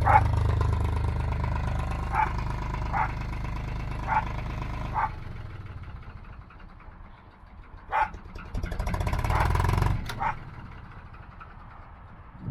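A narrowboat's Lister diesel engine running with a low rumble that drops away about halfway through as it is throttled back, swelling briefly again near the end, while a dog barks about seven times over it.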